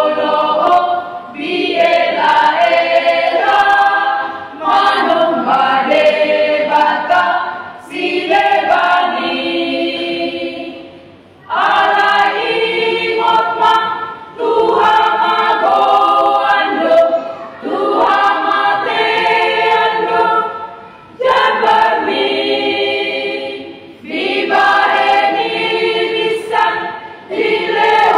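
Women's choir singing a hymn in Batak Toba, unaccompanied, in phrases broken by short pauses.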